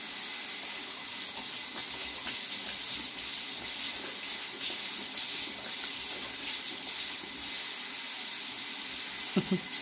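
Handheld shower head spraying a steady hiss of water into a bathtub while an Alaskan malamute laps from the stream. A brief low vocal sound comes near the end.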